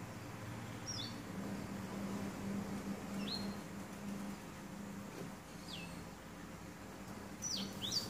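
Black-throated canary giving short, sharp chirps every two seconds or so, each a quick downward-sliding note, with two in quick succession near the end. A faint steady low hum lies underneath.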